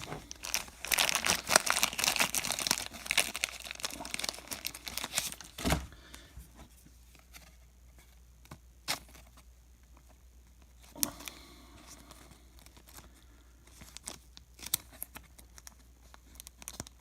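Soft plastic card sleeves crinkling and rustling as one is pulled out, dense for about the first six seconds, then faint scattered rustles and light taps as a baseball card is slid into the sleeve.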